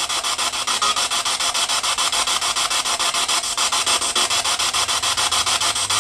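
Spirit box sweeping through radio stations: steady rasping radio static chopped into rapid, evenly spaced pulses, many times a second.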